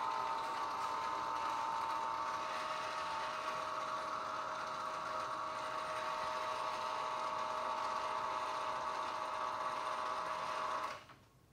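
Hy-Gain CD-45II antenna rotator's motor and gear drive running, turning the antenna beam, with a steady whine of several pitches over gear noise. It cuts off suddenly near the end as the rotation stops.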